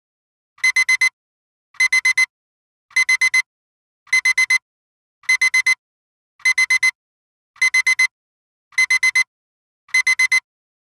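Timer alarm beeping: a high electronic beep in quick groups of four, the groups repeating about once a second, marking that the 12-minute countdown has run out. The beeping stops near the end.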